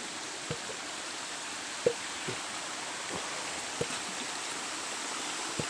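Steady rush of flowing water from a rocky hill stream or waterfall. About six short knocks come through it, the loudest about two seconds in.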